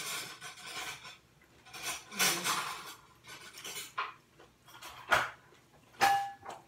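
Fingers picking through rice and fish on a ceramic dinner plate: scattered scrapes and taps. About five seconds in there is a sharp knock, and near the end a clink that rings briefly.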